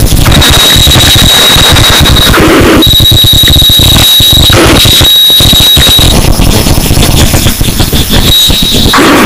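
Harsh noise music: a loud wall of heavily distorted, crackling noise, with a shrill steady whistle that cuts in and out three times in the first two-thirds. Near the end the noise thickens into a denser, lower rumble.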